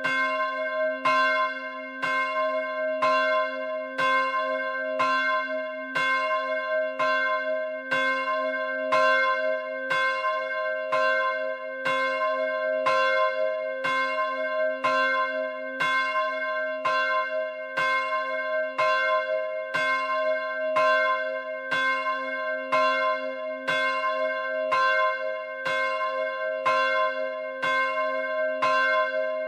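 Smallest of three Rudolf Perner Passau church bells cast in 2009 (75.5 cm, 245 kg, tuned to c''), rung alone, its clapper striking about once a second. Each strike rings on into the next, so the bell's tone sounds without a break.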